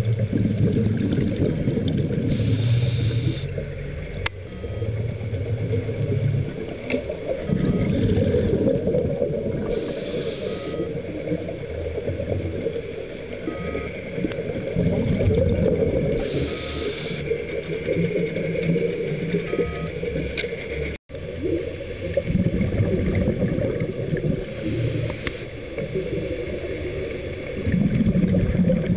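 Underwater sound picked up through a camera housing: a steady low rumble, broken about every seven seconds by a short hissing burst of the filming diver's exhaled regulator bubbles.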